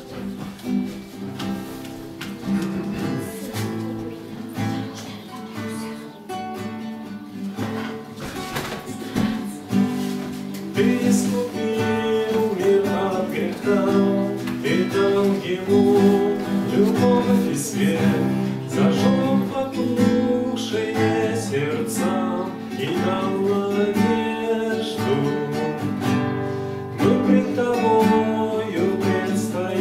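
Acoustic guitar played in chords, with a man's voice singing a slow song over it from about ten seconds in.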